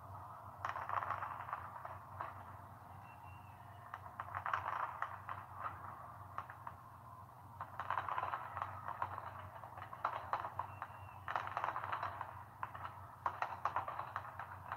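Fireworks crackling and popping in about five bursts a few seconds apart, heard thin through a TV speaker, with a steady low hum underneath.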